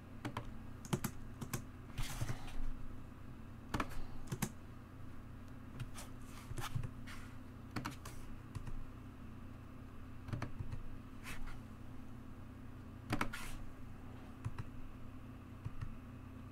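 Computer keyboard keys tapped in scattered single strokes and short runs while lines of code are re-indented, over a faint steady low hum.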